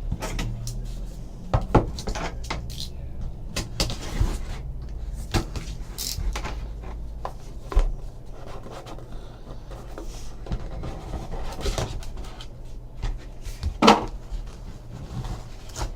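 Handling noises of a trading-card box being opened and its wrapping and cards handled: scattered taps, clicks and crinkles over a low steady hum.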